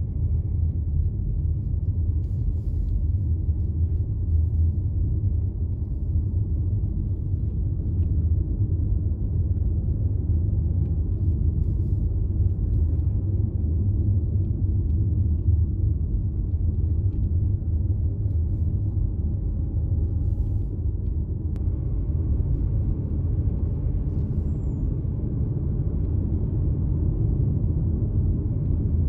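Steady low rumble with no distinct events. A sharp click about three-quarters of the way through is followed by some added higher hiss.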